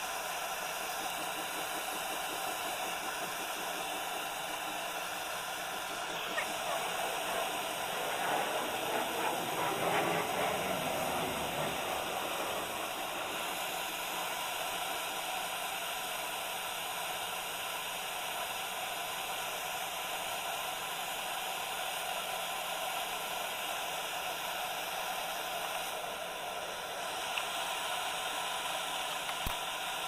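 Handheld LPG torch hissing steadily while brazing copper U-bends on a window air conditioner's cooling coil to seal a refrigerant leak. It grows louder for a few seconds about eight seconds in.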